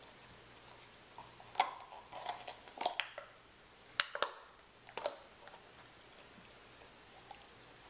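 German Shepherd chewing and mouthing an empty plastic pudding cup: a cluster of sharp plastic clicks and crackles from about one and a half to five seconds in.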